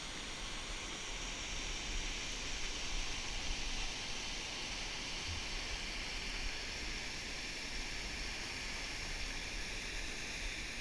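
Water rushing steadily over a low dam spillway.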